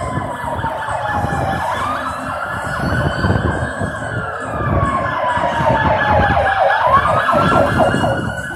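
Emergency vehicle siren wailing, its pitch falling slowly and then sweeping quickly back up, twice, growing louder through the second sweep, over a low rumble of vehicle engines.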